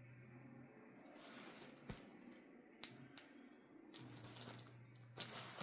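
Quiet rustling and a few soft clicks and taps as the large diamond painting canvas is handled, with a louder rustle near the end.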